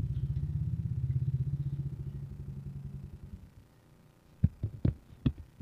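Small Honda scooter engine idling with a steady low pulse, then dying away about three seconds in as it is switched off. A few sharp clicks follow near the end.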